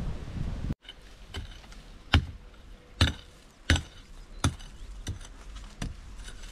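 Short-handled hand tool chopping into packed dirt: a string of sharp strikes, about one every 0.7 s, the loudest three between about 2 and 4 seconds in. Before that, wind noise and rustling leaves cut off abruptly under a second in.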